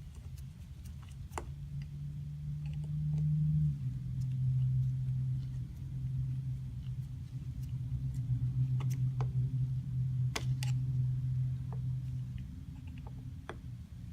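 Scattered small clicks and taps of a screwdriver and carburetor jets being screwed back into the carburetor body, over a steady low hum that drops slightly in pitch about four seconds in and fades out near the end.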